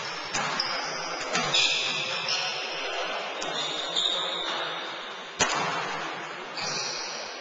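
Basketball practice in a large gym: sneakers squeak on the hardwood court in short high squeals, and basketballs bounce, with one sharp thud about five and a half seconds in.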